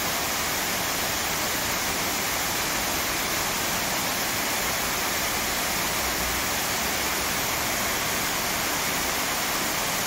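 Waterfall rushing: a steady, even roar of falling water with no break or change.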